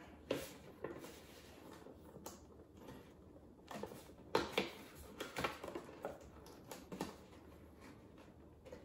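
Cardboard toy box being handled and its top flap opened: an irregular string of soft scrapes, taps and clicks, the loudest about four and a half seconds in.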